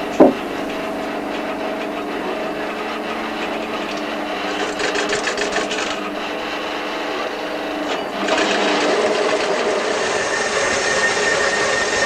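Home-built bandsaw running with a steady hum and its blade rasping through a wooden board. A sharp knock comes just after the start, and the sound grows louder and fuller about eight seconds in.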